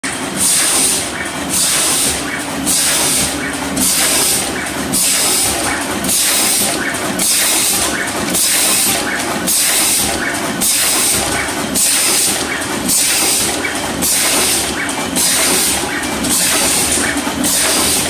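Fully automatic wire cutting, stripping and double-end terminal crimping machine running its cycle: a hiss and clatter that repeat about once a second as each wire is processed.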